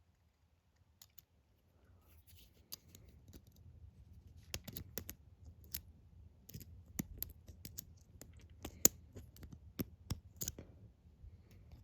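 Irregular small metallic clicks and scratches of a lock pick working the pins inside a brass Master Lock 140 padlock, starting about two seconds in.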